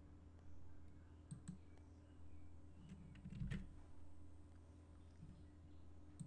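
A few faint computer mouse clicks over a steady low hum, the loudest about three and a half seconds in with a dull thump under it.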